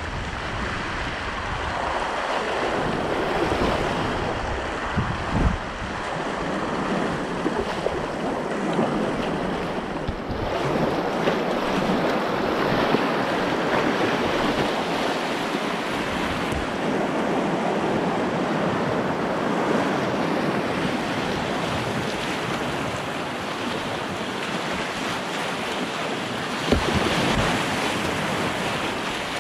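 Rushing whitewater of a river rapid churning around a kayak. Wind buffets the microphone with a couple of low bumps, about five seconds in and near the end.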